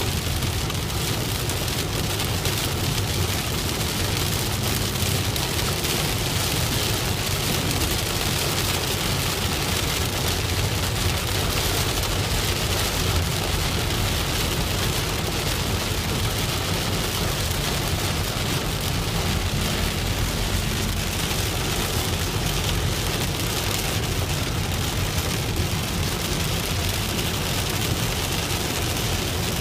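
Steady rain on a moving car, mixed with a low, even rumble of road and engine noise while driving.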